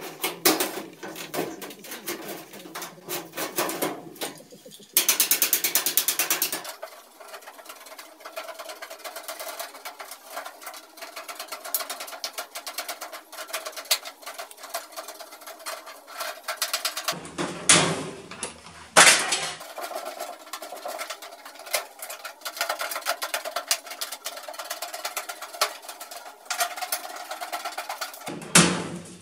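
Hand sheet-metal work on galvanized ductwork: tin snips cutting holes in sheet steel and metal tapping, heard as a run of sharp clicks and snips, with a burst of rapid clicking about five seconds in.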